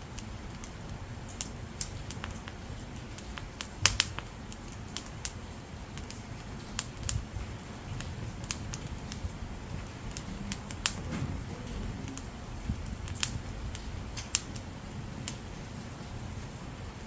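Dry split firewood burning, crackling with irregular sharp pops, the loudest a pair about four seconds in, over a low steady rumble.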